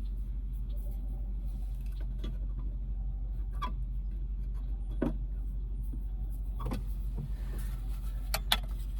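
Scattered clicks and light knocks of plastic and metal parts being handled while fitting a speaker, with a sharp double click near the end, over a steady low drone.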